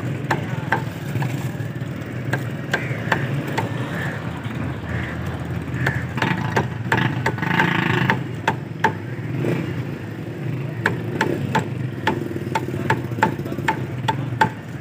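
Butcher's cleaver chopping chicken on a wooden chopping block: repeated sharp knocks, spread out at first and then coming about two a second in the second half. A steady low engine hum runs underneath.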